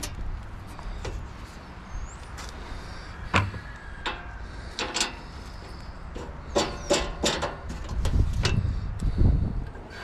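Clicks, knocks and clatter of a portable bandsaw sawmill's steel blade-guard covers being unlatched and handled, with a louder rough scuffing near the end.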